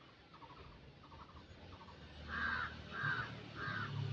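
A crow cawing three times, evenly spaced about two-thirds of a second apart, after fainter quick chattering calls in the first two seconds.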